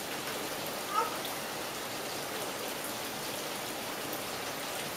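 Steady rain falling, an even hiss of drops with one brief short sound about a second in.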